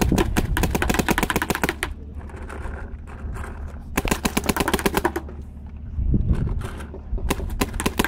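Dye M2 paintball marker, running on compressed air, firing rapid strings of shots in three bursts: about two seconds at the start, a shorter one about four seconds in, and another starting near the end.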